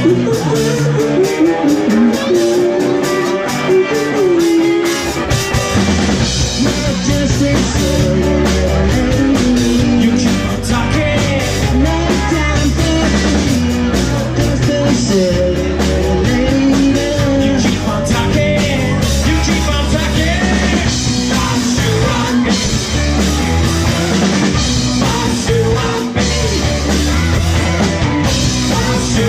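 Live funk-rock band playing, with electric guitar and drum kit and a voice singing; the low end fills out about five seconds in as the bass comes in.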